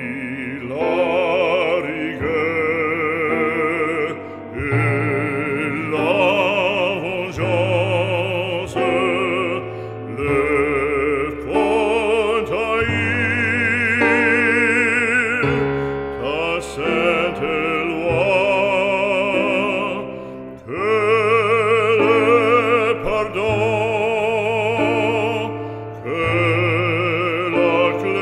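Background music: an operatic solo voice singing long held notes with wide vibrato over a steady accompaniment, in phrases a few seconds long.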